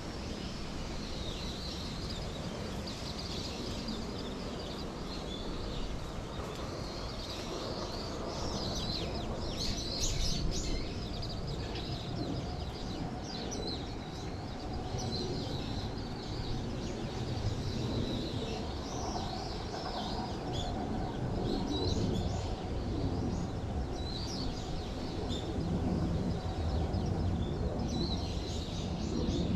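Several small songbirds chirping and twittering in short, overlapping calls, over a steady low background rumble.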